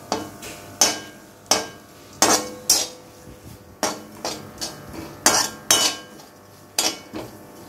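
Metal spatula scraping and clinking against a metal kadhai, in irregular strokes about every half second, as chopped nuts and grated coconut are stirred and roasted in ghee. Some strokes leave a faint metallic ring.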